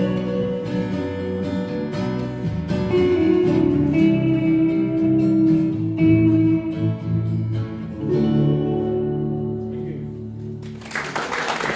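Live band of electric guitars over a strummed acoustic guitar playing an instrumental passage, with some long held notes, and a brief rush of noise near the end.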